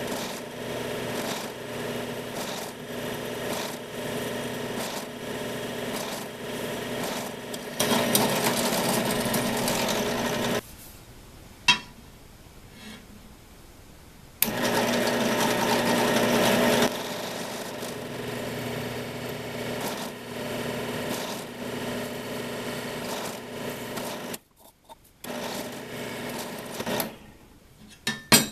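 Benchtop drill press running, its 5 mm bit drilling through aluminium flat bar. The motor hum is steady, with two louder stretches of a few seconds each, a third of the way and halfway through, and a sharp click just before the end.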